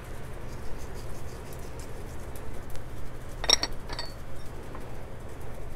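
Light kitchen clatter of a bowl and utensils over a low steady hum: faint scattered ticks, then two sharp clinks about half a second apart, three and a half seconds in, the second ringing briefly.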